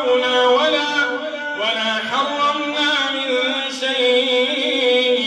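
An imam's melodic chanted Quran recitation (tajweed), a man's voice drawing out long held notes and sliding slowly between pitches.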